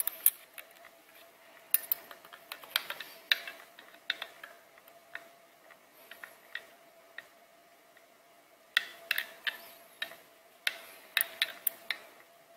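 Irregular small metallic clicks and clacks in scattered clusters as an air stapler's body and nose are handled and turned over, with a faint steady hum underneath.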